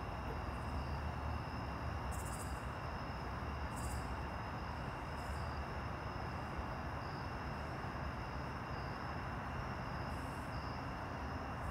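Outdoor night ambience: night insects trill steadily at a high pitch, with a few short, very high buzzes scattered through, over a steady low rumble.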